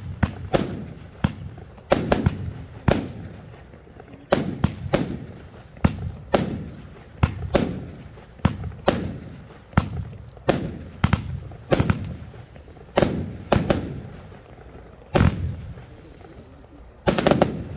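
Röder Feuerwerk 'Billich & Willich 6' firework battery firing shot after shot, each a sharp report with a fading, echoing tail, about one or two a second. A quick cluster of shots comes just before the end.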